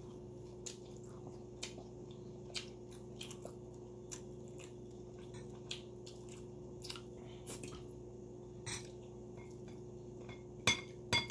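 A person eating milkfish by hand, chewing with scattered small mouth clicks and smacks, and two sharper clicks near the end. A faint steady hum runs underneath.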